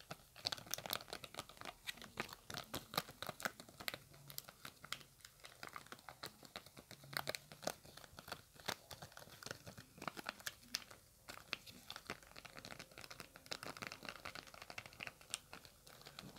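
Long acrylic fingernails rapidly tapping and crinkling a thin clear plastic sheet, a dense, irregular run of sharp clicks and crackles.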